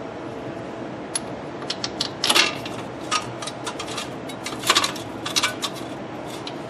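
Irregular light metallic clinks and taps as a hub mounting bolt is put into a new front wheel hub and started in its hole.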